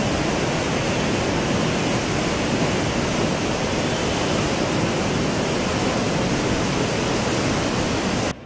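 Floodwater pouring through a dam's open spillway gates: a steady, loud rush that cuts off suddenly near the end.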